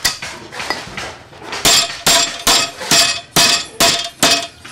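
Hammer blows on the rusty tubular steel frame of an old wheelbarrow near the wheel axle. Lighter, irregular knocks give way after about a second and a half to a steady run of ringing metal strikes, about two to three a second.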